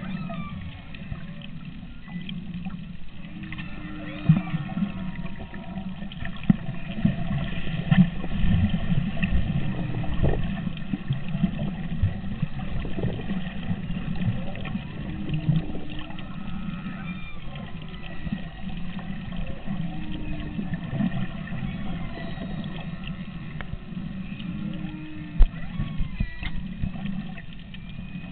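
Humpback whale song heard underwater: short low tones repeating every few seconds and rising and falling squeals, over a steady low rumble of water noise, with a few sharp knocks.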